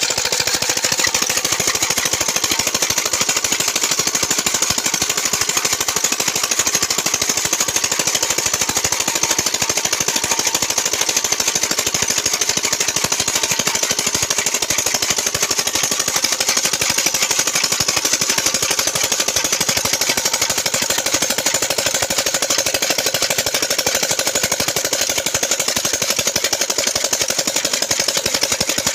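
Single-cylinder Peter (Petter-type) diesel engine running steadily under load with a rapid, even knocking beat, driving a chaff cutter.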